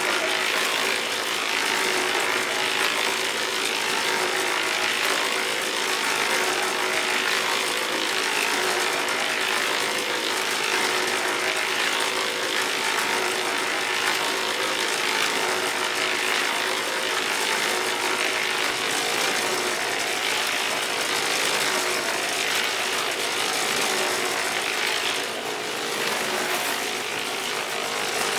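A machine running steadily with a continuous rattling, grinding noise and a steady hum.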